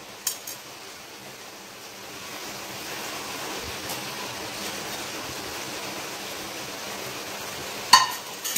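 Steady hiss of vegetables cooking in a kadai on the stove, growing a little louder about two seconds in. A small click comes near the start, and a sharp clatter of dishware about eight seconds in as the plate of ground coconut paste is handled over the pan.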